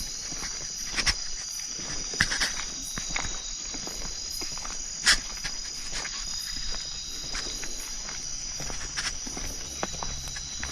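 Insects chirring steadily in a high pitch, with footsteps and a few sharp snaps or knocks scattered through.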